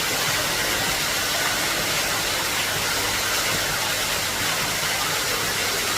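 Steady rush of falling water into a koi pond, an even hiss that holds at one level throughout.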